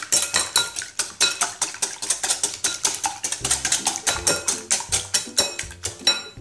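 Wire whisk beating eggs in a glass bowl: a quick, even rhythm of clicks from the wires striking the glass, about six strokes a second. Background music with bass notes comes in about halfway.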